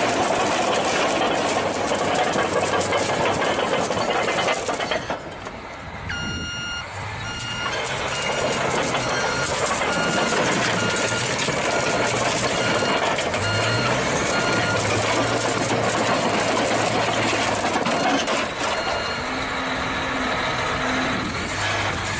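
A vehicle's reversing alarm beeping at an even pace for several seconds, over steady road and engine noise. An engine's pitch rises and falls under it.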